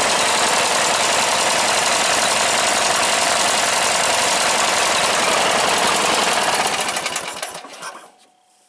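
Single-cylinder Briggs & Stratton riding-mower engine running steadily, then switched off about seven seconds in and dying away to near silence within a second.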